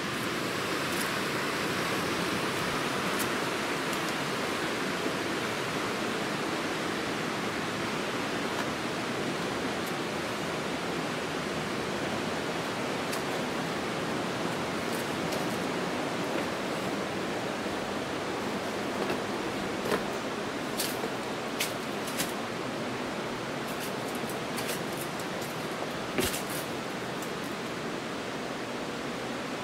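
Steady rush of the Kurobe River flowing over its rocky bed. A few sharp clicks come in the last third.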